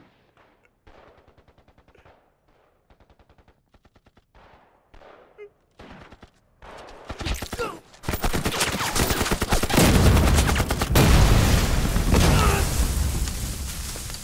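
Faint, evenly spaced ticks for several seconds, then heavy gunfire breaks out about seven seconds in: a dense fusillade of many rapid shots from several guns, rising to its loudest and easing off slightly near the end.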